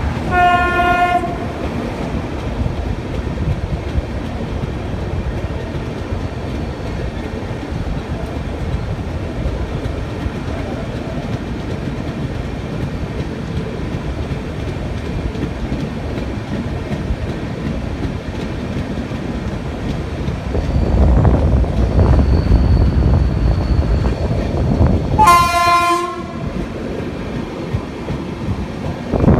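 Indian Railways passenger train running along the track with a steady noise that swells for a few seconds near the end. A train horn sounds briefly twice, just after the start and again near the end.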